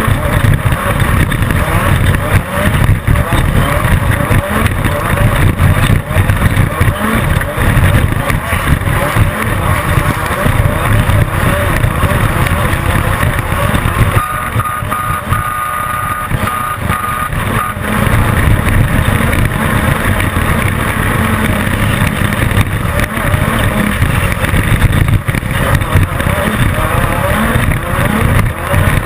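Class 10 off-road race car driven hard over desert terrain: the engine runs loud under load, with constant jolting clatter from the rough ground. A steady high tone sounds for about three seconds midway.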